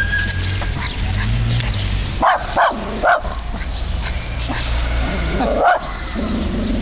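West Highland white terrier barking at a trash bag: three quick, sharp barks a little over two seconds in and one more a couple of seconds later, over a steady low rumble.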